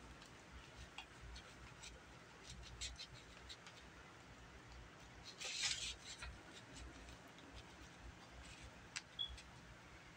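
Quiet eating sounds: a metal fork scraping and tapping on a paper plate as fried eggs are cut up, with scattered small clicks and one brief louder scrape about five and a half seconds in.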